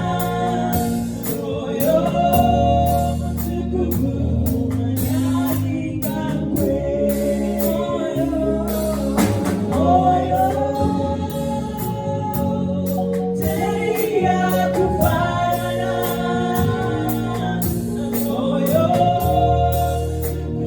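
Gospel worship song: voices singing together over a band with bass and drums.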